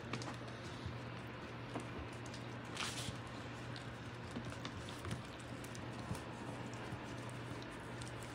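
Amstaff puppies' paws and claws pattering and clicking on a hardwood floor as they scuffle and play, with a brief scuffing rustle about three seconds in, over a steady low hum.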